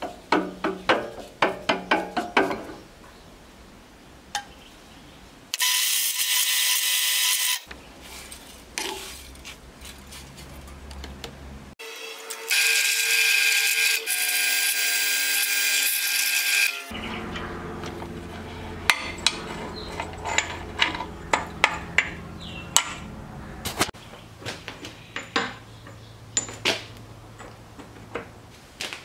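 Drill press drilling mild steel: two loud stretches of high-pitched cutting noise, one about two seconds and one about five seconds long, between spells of the machine's low steady hum with scattered clicks and ticks.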